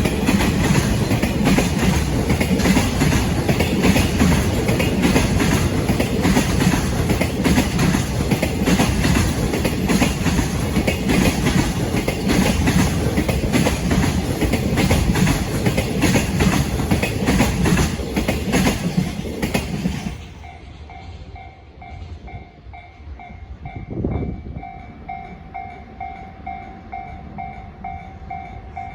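Electric freight train passing close by, its wheels clattering over the rail joints, cutting off abruptly about two-thirds of the way through. After that, a level-crossing warning bell rings in steady, regular pulses.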